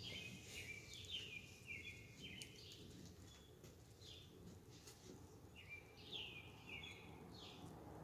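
A songbird singing faintly in phrases of short, falling whistled notes, with pauses between the phrases, over a steady low background noise.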